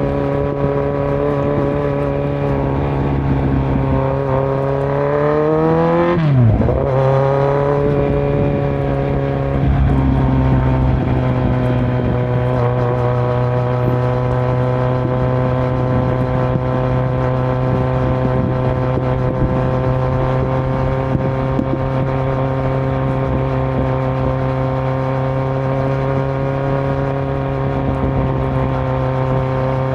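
2018 Kawasaki Z900 inline-four engine through a Yoshimura muffler and Delkevic headers with no dB killer, running at steady cruising revs. About six seconds in, the revs climb briefly, drop sharply, then settle back to a steady note.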